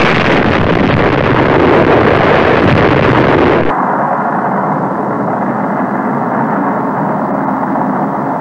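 Explosion: a sudden loud blast followed by a dense, continuous rumble. A little under four seconds in it cuts abruptly to a duller, lower rumble that goes on steadily.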